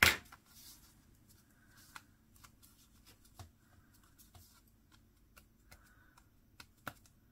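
Cardstock pieces being handled on a craft table: a sharp tap at the start, then scattered light clicks and soft paper rustles.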